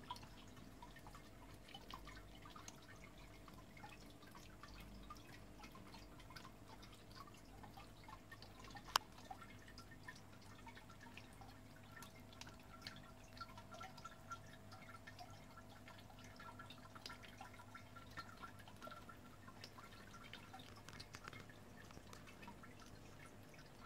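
Faint water dripping and trickling from a homemade 3D-printed water feature into its basin: many small, irregular drips over a faint steady hum, with one sharper click about nine seconds in.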